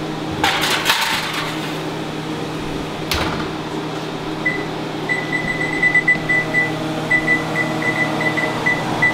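A foil pan clattering onto an oven rack and the oven door knocking shut about three seconds in, then a quick run of high electronic beeps from the oven's touch-pad controls as the temperature and timer are keyed in. A steady fan hum runs underneath.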